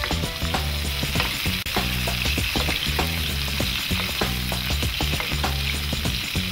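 Catfish fillets sizzling in hot oil in a frying pan, with the steady hiss of the fat and repeated light clicks and scrapes of a spoon against the pan as the hot fat is basted over the fish.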